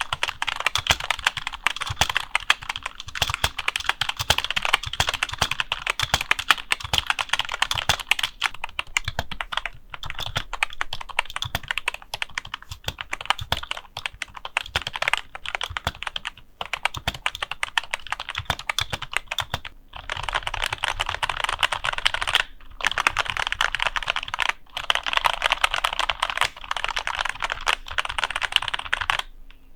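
Rexus K9E membrane keyboard being typed on steadily, a dense clatter of key presses broken by a few brief pauses. Its switch housings, stabilizers and spacebar wire are lubed with Krytox 205 grade 0.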